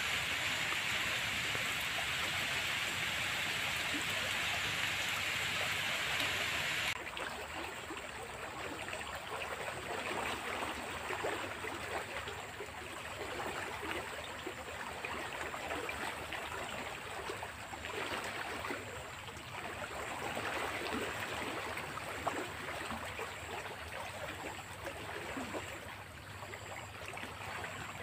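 A fast-flowing, rain-swollen ditch rushing steadily over the bank edge. The noise drops suddenly to a lower, rougher rush about seven seconds in.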